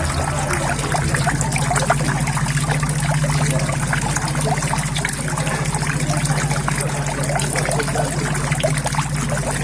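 Water steadily trickling and splashing into a koi pond, with many small drips and splashes, over a steady low hum.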